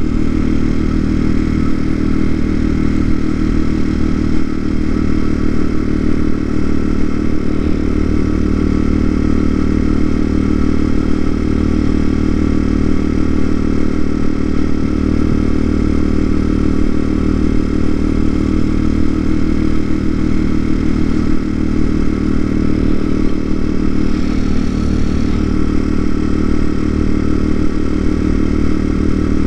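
TaoTao TBR7 motorcycle engine running steadily while the bike cruises along at an even speed.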